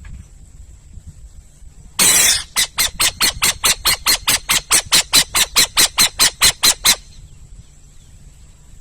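An owl calling: one long harsh screech, then a rapid series of about twenty short harsh notes, about five a second, lasting some four and a half seconds.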